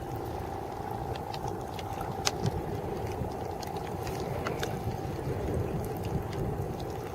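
A small wooden fishing boat's engine running steadily, with a constant hum, and scattered sharp clicks over it.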